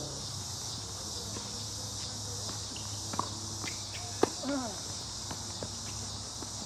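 Steady high chorus of crickets and other insects, with a few sharp knocks of a tennis ball off racket and court. The loudest knock comes about four seconds in and is followed by short squeaks.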